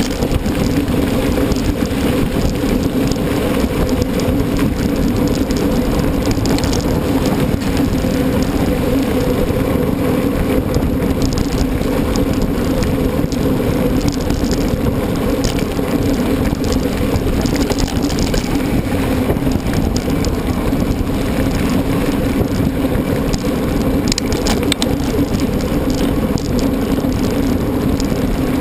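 Mountain bike being ridden at a steady pace: tyres rolling with an even hum, and the bike rattling over the ground.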